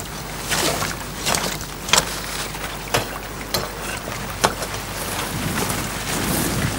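Maize leaves rustling and crackling as a person moves among the tall plants, with irregular sharp snaps over a steady rustle.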